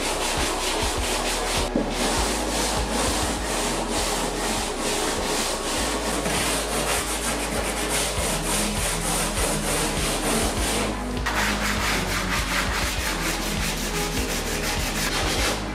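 Cured fiberglass panel being hand-sanded with sandpaper in quick, repeated back-and-forth scratching strokes. The scratching changes in tone about eleven seconds in.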